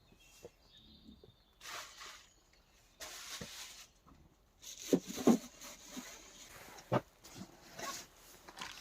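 Wild boar making short, scattered grunts, the loudest about halfway through, with rustling between them.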